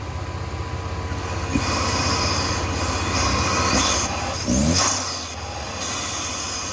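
2020 Chevy Malibu's 1.5-litre turbocharged four-cylinder running with a K&N intake fitted. The revs rise in the middle of the stretch with a quick blip about four and a half seconds in, then the engine settles back toward idle.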